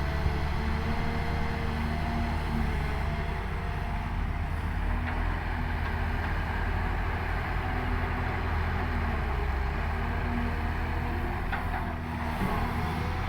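Excavator's diesel engine running steadily as the machine works, with a couple of faint knocks near the end.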